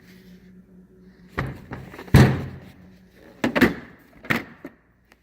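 Steel tool-chest drawers being shut and opened: about four clunks, the loudest about two seconds in.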